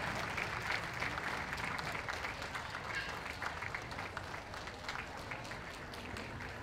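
Ringside audience applauding steadily, many hands clapping together, easing off slightly toward the end.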